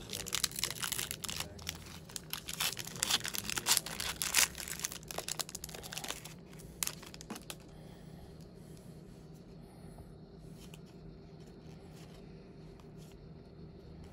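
Trading-card pack wrapper being torn open and crinkled in the hands, a dense crackling for about the first six seconds with a couple more rustles near seven seconds, then only faint room tone.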